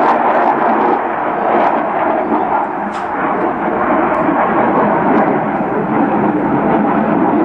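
Jet noise from a Eurofighter Typhoon's two EJ200 turbofan engines: a loud, steady roar with no break.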